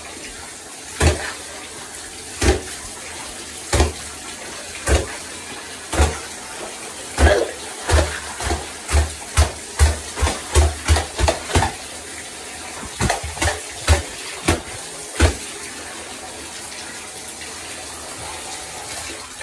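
Water running steadily from a tap into a bathtub, with a series of sharp knocks over it: about one a second at first, coming faster, two or three a second, in the middle, then stopping well before the water does.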